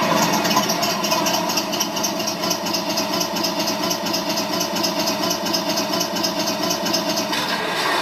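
RC Tiger I tank's TK22 sound card playing a simulated engine idle through the model's speaker, steady with a regular pulsing beat.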